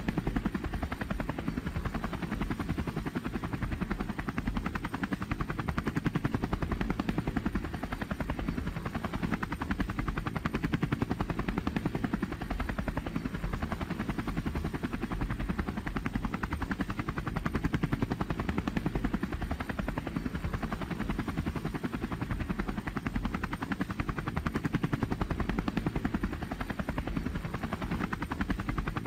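Helicopter in flight heard from inside the passenger cabin: a steady, rapid rotor chop over the engine's low drone.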